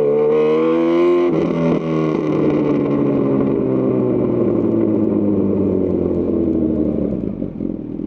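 2018 Honda CB1000R's inline-four engine through a Lextek CP1 full aftermarket exhaust, revving up with a short break at a gear change about a second in, then falling slowly in pitch as the bike rolls off the throttle and slows.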